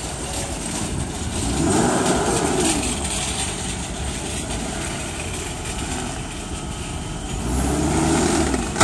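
Steady vehicle engine and traffic noise that swells twice as an engine's pitch rises and falls, about two seconds in and again near the end. A knock comes right at the very end.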